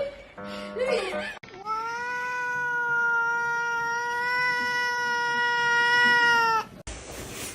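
A cat yowling in one long, steady call of about five seconds, held on one pitch, starting about a second and a half in and cutting off abruptly.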